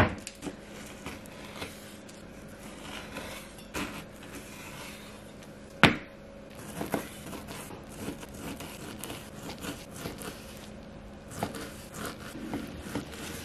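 Knife cutting cured pork on a wooden board, the blade knocking on the board, sharply once at the start and again about six seconds in, then a run of quicker chopping taps near the end.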